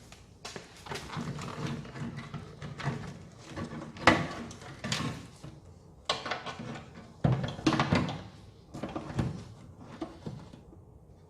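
Irregular clunks, knocks and rattles of metal parts and hand tools being handled while car parts are fitted by hand, with sharper knocks about four, six and seven seconds in.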